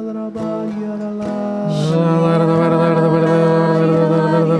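Slow worship music of held notes with guitar and singing, swelling onto a new chord about two seconds in.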